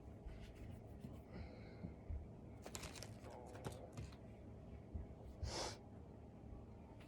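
Quiet handling of cat-tree assembly parts: a few light clicks about three seconds in, and a short hiss-like rustle a couple of seconds later.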